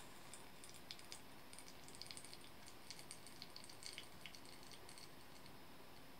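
Faint, irregular crackling and tiny pops from freshly wetted coffee grounds blooming in a paper pour-over filter, as gas escapes from the bed. The pops thin out and stop near the end.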